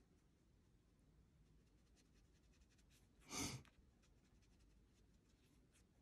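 Near silence with faint scratching of a coloured pencil on paper, and one short breathy sigh about three and a half seconds in.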